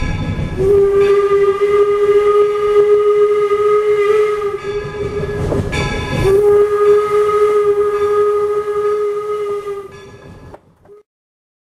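Steam whistle of a 4-4-0 steam locomotive blowing two long, steady blasts, with a brief clatter between them. The sound cuts off suddenly near the end.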